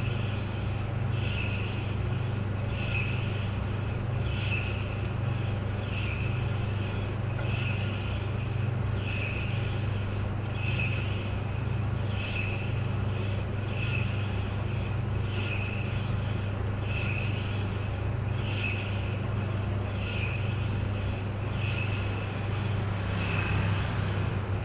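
Clothes dryer running steadily: a constant low hum with a faint higher-pitched sound that repeats about once a second.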